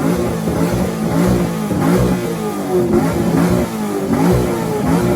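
Hemi V8 muscle car engine being revved over and over, its pitch climbing and falling back about once a second, for a loudest-exhaust contest.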